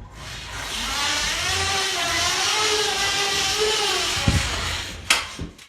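A motor running steadily, its hum wavering gently in pitch over a noisy hiss, with a short knock near the end.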